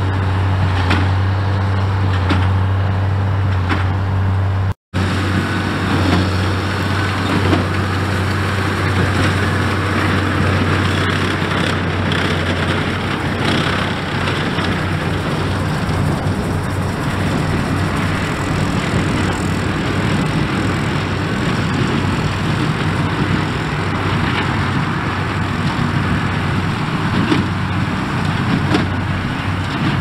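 Straight-piped New Holland tractor engine running steadily under load while pulling a Massey Ferguson 187 square baler, with the baler knocking and clattering along with it. The sound cuts out for an instant about five seconds in.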